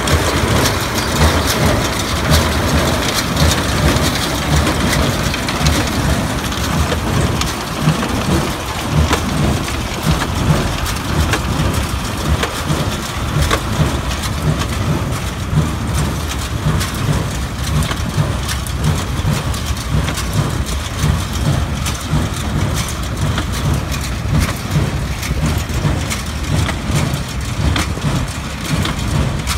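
Tractor engine running under load while the Kirgizstan pick-up baler it tows gathers and compresses hay, its plunger working with a steady rhythmic pounding amid clatter and crackling of hay.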